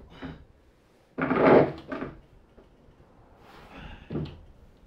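Handling noise: a loud rough scrape or rattle about a second in, lasting under a second, then a shorter knock near the end.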